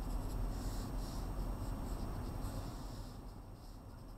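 Pencil scratching on paper in short sketching strokes, thinning out about three seconds in.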